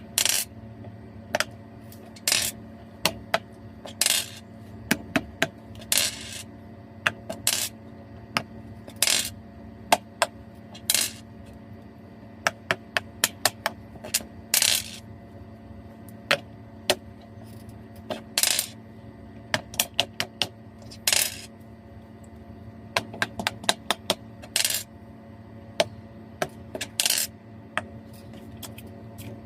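Bubbles of a homemade pop-it fidget toy being pressed: a long series of sharp, irregular pops and clicks, some single and some in quick runs of several, over a faint steady hum.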